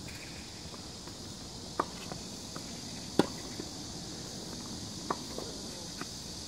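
Tennis rally: rackets striking the ball with sharp pops every one and a half to two seconds, the loudest a little after three seconds in, with fainter ticks between the hits.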